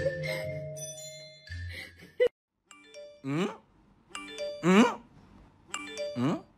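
Background music of chime-like mallet notes. A little over two seconds in it cuts off with a click, then a short chiming phrase ending in a falling swoop repeats about every second and a half.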